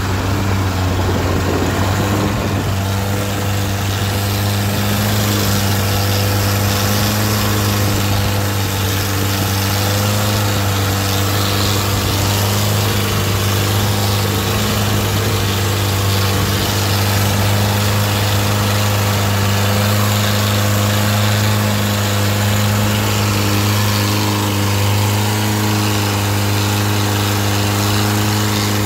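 Long-tail boat's exposed automotive engine running at a steady speed, a loud even drone that does not change pitch, over the constant rush of water spray and wind.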